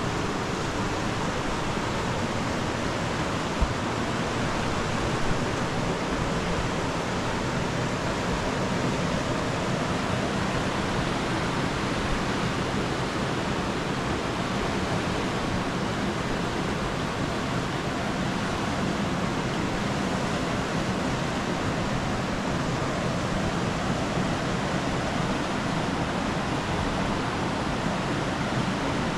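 Steady rush of a large, fast-flowing river, with two brief sharp ticks about three and a half and five seconds in.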